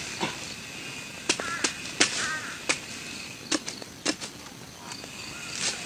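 A blade chopping into a large raw tuber: about ten sharp, irregular strikes as it hacks through the root-covered skin into the flesh.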